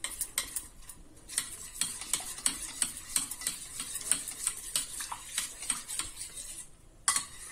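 Steel spoon stirring vanilla custard powder into cold milk in a stainless steel bowl, clinking quickly against the bowl's sides several times a second. The clinking stops briefly near the end, then a single sharper clink.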